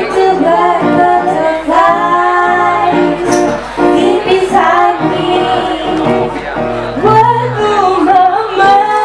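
Two women singing a duet into handheld microphones, their voices amplified over a musical accompaniment, with sustained, gliding sung notes.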